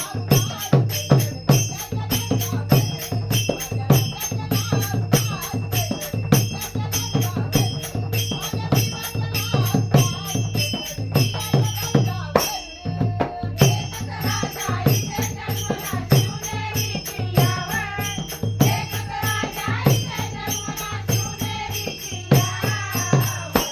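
Instrumental music with a steady drum beat and a rattling shaker-like percussion keeping time; a wavering melody line comes in a little over halfway through.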